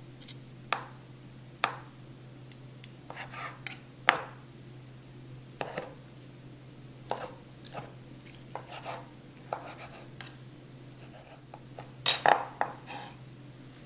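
Chef's knife cutting and chopping cooked chicken breast on a wooden cutting board: irregular knocks of the blade against the board, with a quick run of chops about twelve seconds in. A steady low hum runs underneath.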